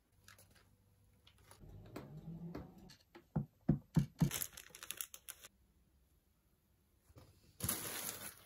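A string of small handling sounds: scattered clicks and knocks, with a few short low thuds around the middle. Near the end comes a brief rustle of plastic mailer bags being moved.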